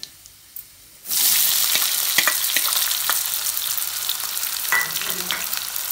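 Chopped onions dropped into hot oil in a kadai, bursting into loud sizzling frying about a second in, which goes on steadily and eases slightly.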